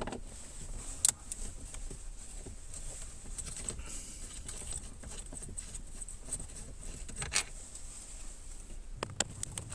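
Scattered light clicks and small metal clinks over a low steady background, with a sharper knock about a second in and a cluster of clicks near the end.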